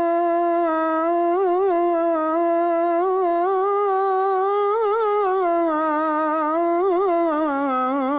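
A muezzin's voice holding one long, ornamented note of the Fajr call to prayer, drawn out on the end of 'as-salah' before 'khayrun min an-nawm'. It has short trills about a second and a half, five and seven seconds in, and sinks slightly in pitch near the end.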